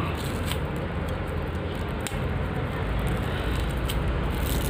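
Clear plastic bag rustling and crinkling as hands handle a wrapped black metal footstep bracket, with a few small clicks. A steady low hum runs underneath.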